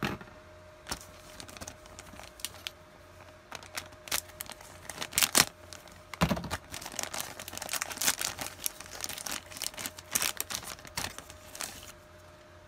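Thin clear plastic bag crinkling as a plastic model-kit sprue is handled and taken out of it. Irregular crackles, loudest about five seconds in, stop shortly before the end.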